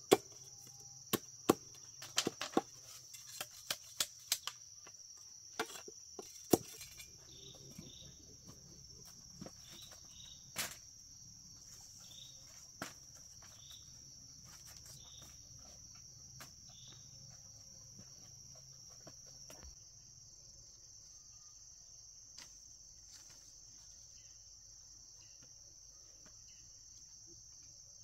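A steady high-pitched insect trill throughout. Over it, a quick run of sharp knocks fills the first seven seconds, followed by a couple of isolated knocks.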